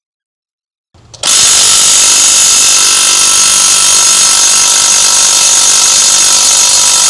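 Impact wrench running, cutting in suddenly about a second in and staying loud and steady, on a stuck fastener that will not break loose.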